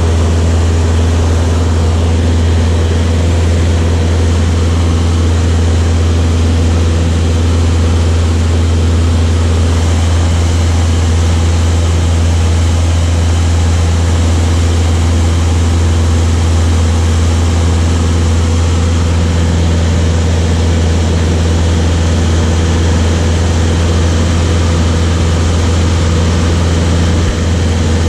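Light propeller aircraft's piston engine and propeller running steadily with a loud, low, unchanging drone.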